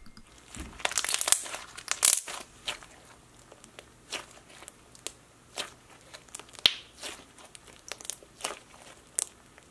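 Thick raspberry cake batter slime being squeezed and stretched by hand, giving irregular crackles and squelchy pops. A dense run of crackles comes about a second in, then scattered single pops.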